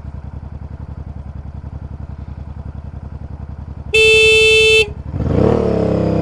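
Motorcycle engine idling with a steady pulse, then the motorcycle's horn gives one loud, steady, single-tone beep just under a second long, about four seconds in. Right after, the engine revs up as the bike pulls away.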